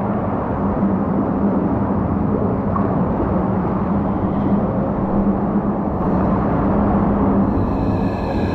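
Steady rumbling rush of a ride down an enclosed tube water slide, mixed with the slide's Formula 1 racing-car sound effect as a steady hum. A higher whine comes in near the end.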